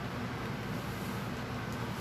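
Steady low rumble with an even hiss, unchanging throughout, with no distinct knocks or other events.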